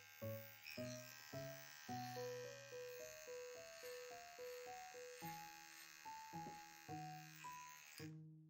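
Small electric pet nail grinder buzzing steadily as it files a cat's claws, cutting off sharply near the end. Light background music of plucked notes plays throughout.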